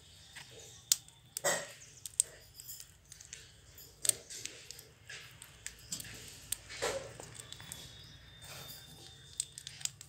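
Green parakeets in a wire cage biting and chewing guava: scattered sharp clicks and short crunches from beaks at work, with the strongest crunches about a second and a half in and near seven seconds.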